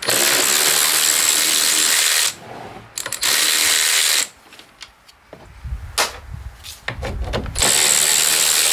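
Power drill-driver spinning out bolts from a snowmobile chain case cover, in three runs: a long one at the start, a short one just after three seconds, and another starting near the end. Between the runs come quieter handling sounds.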